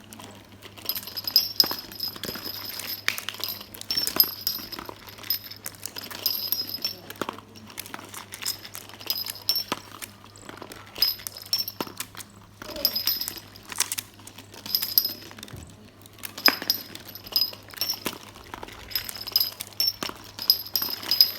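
Marbles rolling and clattering through a homemade marble run: many short clicks and knocks, with recurring high ringing tones, over a steady low hum.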